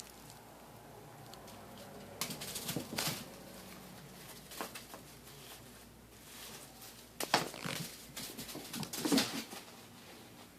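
A rolled-up bag rustling and crinkling as a cat bats at it, in several short bursts with quiet pauses between.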